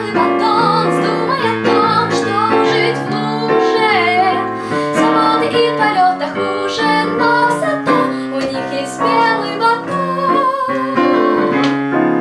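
A young woman singing a song in Russian to a live digital piano accompaniment: piano chords and bass notes under a sustained, gliding sung melody.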